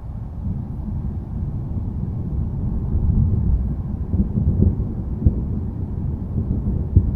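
Rolling thunder: a deep, low rumble that swells over the first few seconds, with a few sharper cracks in the second half.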